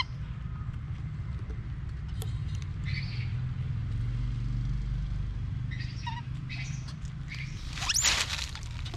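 Soft, scattered rustles and clicks of a young macaque eating a tomato among dry leaves, over a steady low rumble. A short rising squeak about eight seconds in is the loudest sound.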